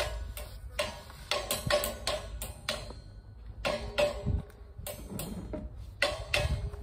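Acoustic guitar being handled: irregular taps and knocks on its body, several a second, with short plucked notes ringing after some of them.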